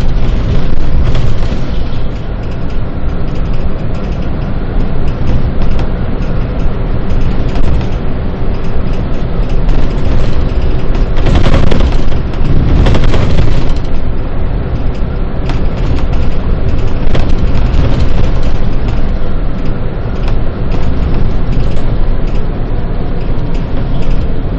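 Bus under way: a loud, steady rumble of engine and road noise, with a louder rush about halfway through.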